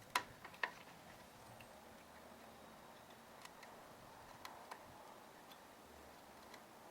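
Scattered light clicks and taps of small tools and parts being handled on a workbench during circuit-board soldering work: two sharper clicks about half a second apart at the start, then a few faint ticks.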